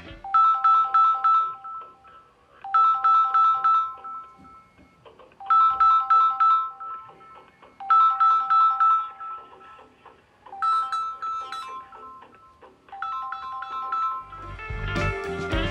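Samsung Galaxy A14 ringing with an incoming call: its ringtone plays a short phrase of quick bright notes six times, each about a second and a half long with a short pause between.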